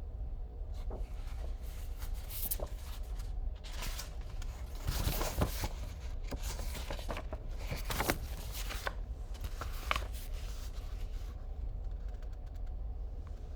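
Paper rustling and handling noises from a picture book being turned and held: a scatter of short brushing sounds, busiest around the middle, over a steady low hum.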